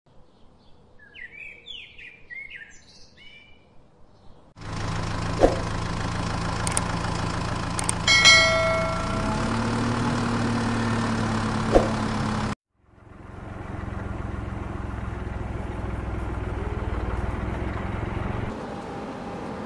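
Birds chirp for the first few seconds, then a steady engine-like hum starts suddenly, with a few clicks and a brief high beep about eight seconds in. The hum cuts off abruptly a little after twelve seconds, and a lower steady rumble follows until near the end.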